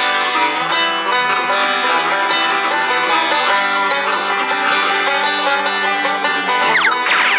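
Banjo picking a tune over held harmonica notes. Just before the end, a few quick gliding tones sweep through the upper register.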